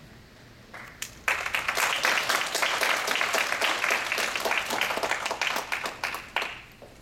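Audience applauding: a few scattered claps, then full applause from about a second in that dies away near the end.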